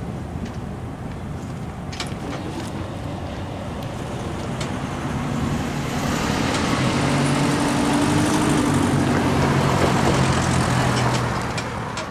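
Road traffic at a street crossing: a passing motor vehicle's engine and tyre noise grows louder through the second half, with a steady low engine hum, then eases off near the end. A few sharp clicks sound in the first half.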